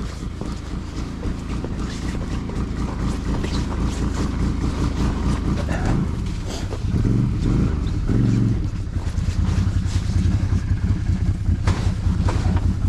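ATV engine running and growing gradually louder, revving in a few surges about seven to eight and a half seconds in, then settling into a louder, steady, throbbing run.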